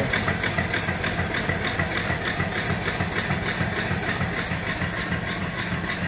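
Small 3-horsepower single-cylinder steam engine (3-inch bore, 4-inch stroke) running steadily on its vertical boiler, its exhaust chuffing up the stack in a quick, even beat.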